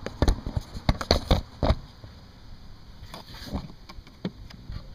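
A quick run of sharp clicks and knocks in the first two seconds, then a few fainter taps: a screwdriver prying at the plastic retaining clips of a Mercedes W202's wiper cowl cover, mixed with knocks from the camera being handled.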